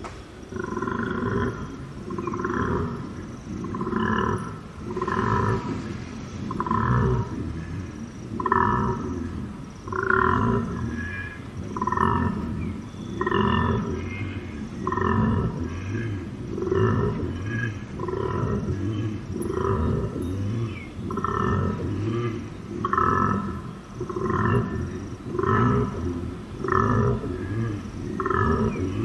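Male koala bellowing: a long run of low calls, each swelling and fading, repeating about once every one and a half seconds.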